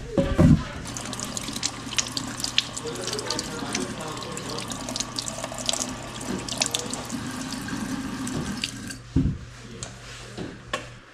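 Kitchen faucet running into a stainless steel sink while butternut squash is rinsed under the stream by hand, water splashing off it; the tap shuts off about nine seconds in. Knocks at the start and just after the water stops.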